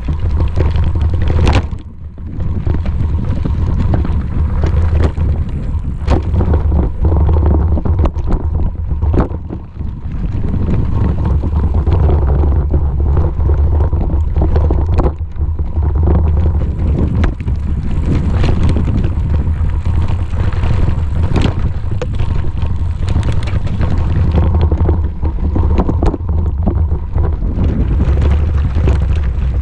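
Wind buffeting the camera microphone over the rumble of a bicycle riding along a rough dirt trail, with frequent irregular knocks and rattles.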